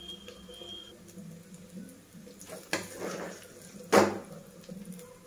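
A metal spatula scrapes and clanks against a stainless steel kadai while stirring and tossing a thick dry fry. There are two sharp knocks, one about two and a half seconds in and a louder one about four seconds in.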